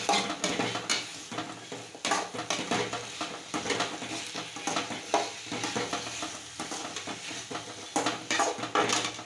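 Metal spatula scraping and knocking against a metal kadai in repeated irregular strokes as mixed vegetables in masala are stirred and sautéed.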